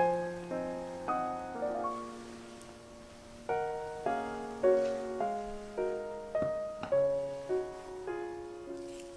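Background music: gentle solo piano, notes struck one after another and left to ring and fade.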